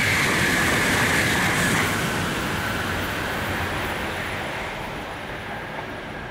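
Tokaido Shinkansen N700-series train passing through the station at speed without stopping: a loud rush of wheels and air for about two seconds, then fading steadily as the train moves away.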